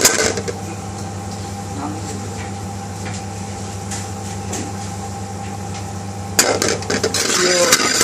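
A steady low hum, then from about six seconds in a spoon scraping and clinking in a metal pan as sugar, coconut powder and almond powder are stirred into melted ghee.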